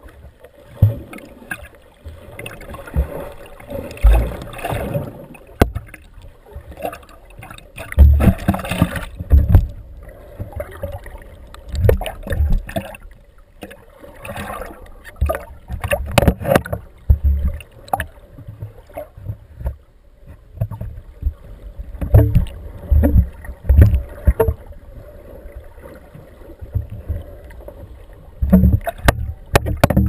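Water rushing and thumping against an underwater camera as the swimmer moves, in irregular low bursts every second or two.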